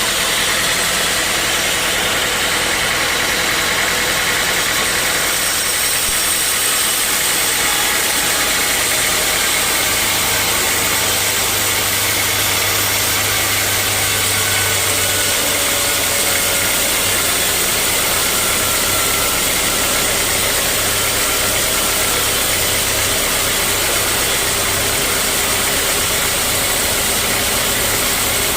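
Sawmill saw and its drive running steadily: a loud, continuous machine noise. A steady low hum joins it about ten seconds in.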